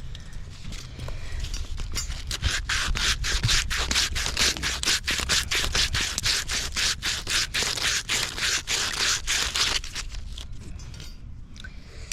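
Wire brush scrubbing the inside of a copper pipe fitting by hand, fast even back-and-forth strokes about four a second, cleaning the metal for soldering. The strokes ease off near the end.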